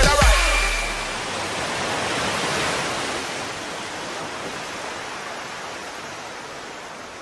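Music stops within the first second, and a steady rushing of ocean surf follows, slowly fading.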